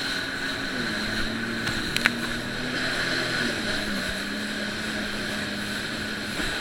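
Jet ski engine running steadily, its pitch stepping down slightly a few times as the throttle eases. A short click about two seconds in.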